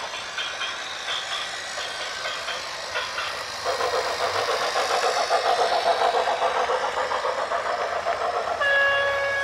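A vehicle's fast rhythmic mechanical clatter grows louder about a third of the way in. Near the end a horn starts a single steady blast.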